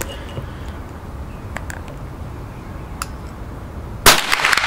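Unsuppressed Savage .22 rimfire rifle firing a single supersonic round about four seconds in: one sharp, loud gunshot that trails off over about a second. A few faint clicks come before it.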